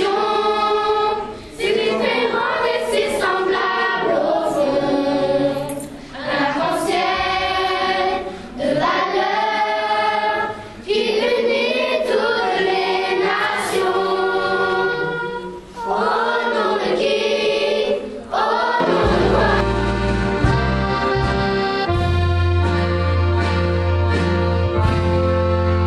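Children's choir singing unaccompanied in phrases with short breaks between them. About three-quarters of the way through, an accordion orchestra comes in with steady held chords and a deep bass.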